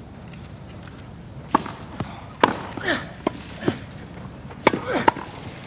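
Tennis ball being struck by rackets and bouncing on a grass court during a serve-and-volley point: about seven sharp knocks spread over a few seconds, with a couple of brief voices between the shots over a hushed crowd.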